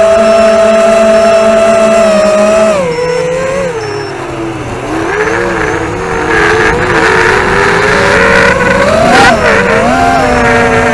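ZMR250 racing quadcopter's four DYS 2204 brushless motors with tri-blade props whining, heard loud from the onboard camera. The pitch holds steady for the first few seconds, then drops and wavers with throttle changes, with a rush of air over the frame midway, and climbs sharply near the end before settling.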